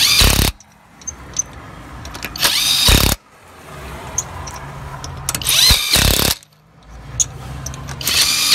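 Heimerdinger cordless impact wrench running wheel lug nuts on. The motor spins each nut down, then hammers in a short loud burst as the nut seats. There are four bursts, about every two and a half to three seconds.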